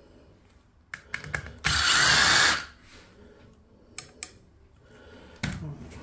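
Cordless drill-driver spinning for just under a second on the screws of a multipoint door lock, with clicks and knocks of metal lock parts being handled before and after it.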